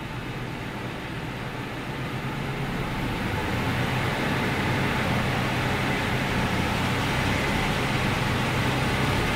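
A truck's engine and drivetrain running in gear with the rear wheels off the ground on jack stands, spinning up to about 90 km/h for a balance check. The hum and rush of the spinning driveline grow steadily louder, then hold steady.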